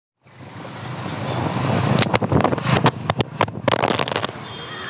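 Motor vehicle noise that swells over the first two seconds, then a run of sharp crackles or knocks between about two and four seconds in before it settles quieter.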